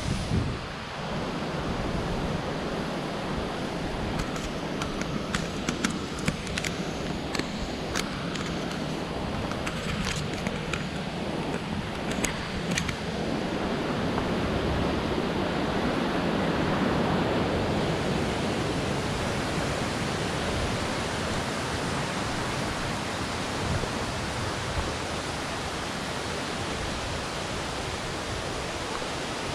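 Waterfall's rushing water, a steady full roar of noise, with a scatter of short sharp clicks and knocks between about four and thirteen seconds in.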